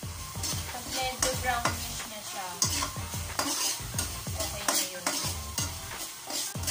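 A spatula scraping and stirring minced meat around an aluminium pan in repeated strokes, with the meat sizzling in hot oil.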